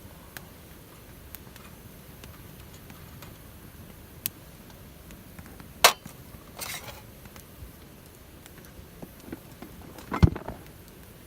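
Wood fire in a Picogrill crackling, with scattered sharp pops; a loud pop about six seconds in and a cluster of knocks with a low thud about ten seconds in.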